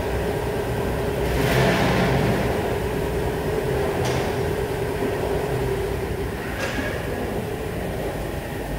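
Steady machine hum with a constant mid-pitched tone under a wash of noise. Short hissing bursts come about a second and a half in, again near four seconds and near seven seconds.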